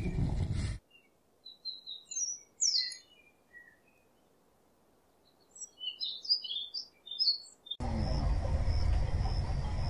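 Small birds chirping: short, scattered high calls and trills over several seconds against silence. Near the end a steady hiss with a pulsing high-pitched buzz cuts in abruptly.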